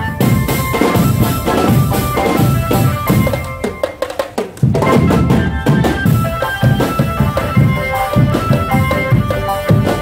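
Drumband music: bass and snare drums beating a busy rhythm under a melody of held notes, with the drumming dropping away briefly about four seconds in before it comes back.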